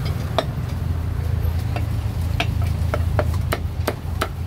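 Cleaver chopping roast duck on a thick wooden chopping block: about nine sharp knocks, coming faster in the second half, over a steady low hum.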